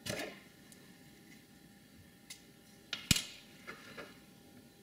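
Handling noise on a workbench as a flux syringe is picked up and brought to a circuit board: a brief rustle, then a few light clicks and knocks, the loudest a sharp click a little after three seconds in.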